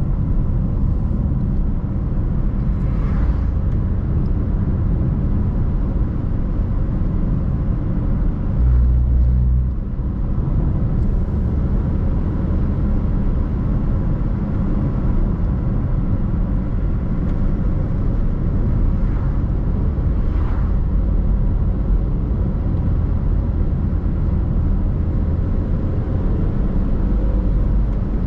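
A car driving on the road: a steady low rumble of engine and tyres, with a brief louder surge of rumble about nine seconds in.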